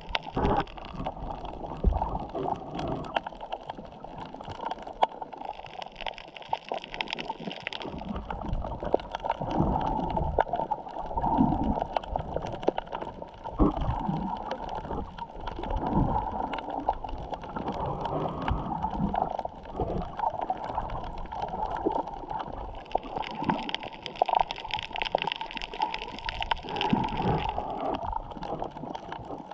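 Underwater sound picked up by a camera held below the surface: muffled gurgling and sloshing of water, with irregular soft thumps and a steady scatter of faint crackles.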